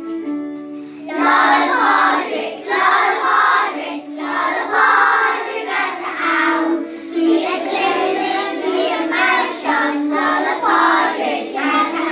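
A group of young children singing together over an instrumental backing track. The backing plays alone for about the first second before the voices come in, and the singing goes in phrases with short breaks between them.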